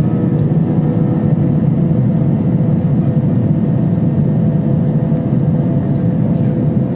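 Airliner jet engines heard from inside the passenger cabin, running at high power for the takeoff roll: a loud, steady rumble with a steady whine over it, the engines having just spooled up.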